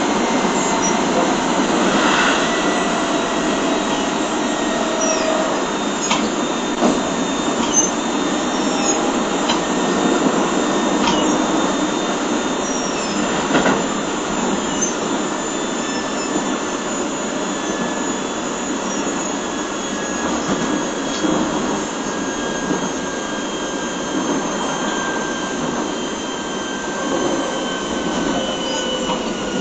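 Keio 7000 series electric train heard from inside its field-chopper motor car, running along the line. A steady rumble of wheels on rail carries a whine from the traction motors and gears that slowly falls in pitch, with a few sharp clicks from the track.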